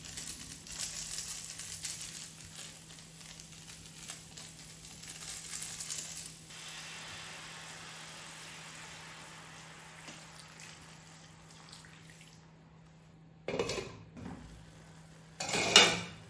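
Instant noodles and onions sizzling in oil in a hot frying pan, then water poured into the pan with a steady hiss that fades out about twelve seconds in. Near the end come two short, loud sounds, the second the louder.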